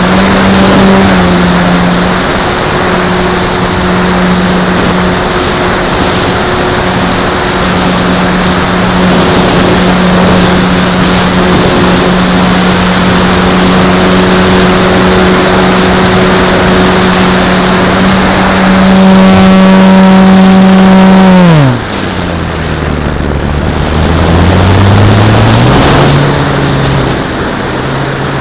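Onboard sound of a radio-controlled Extra 330L model aerobatic plane: its motor and propeller run at a steady high pitch with wind rushing over the microphone. About three-quarters of the way through the throttle comes off: the pitch drops sharply and the sound quietens, then a few seconds later it climbs back up as power is reapplied.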